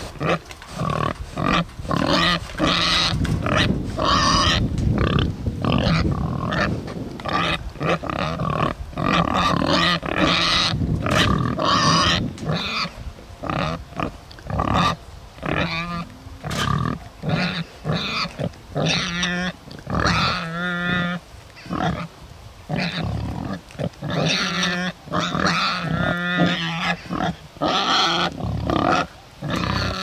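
Bunte Bentheimer (Bentheim Black Pied) pigs grunting right up close. A dense run of grunts fills the first half, then the grunts come shorter and more spaced, with a few longer, higher calls in the middle and near the end. The grunting sounds admittedly unhappy.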